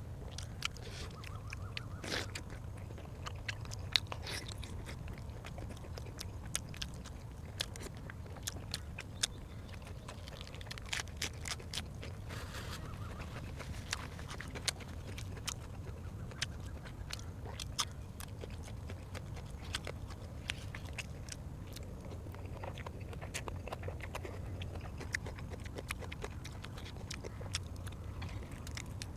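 A person chewing and biting food close to the microphone, with many short, irregular wet clicks and crunches over a steady low hum.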